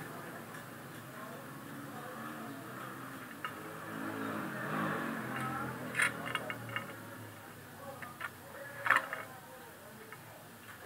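A few light metallic clicks and scrapes of a steel ruler being set down and slid against a steel channel section, over a faint steady background hum.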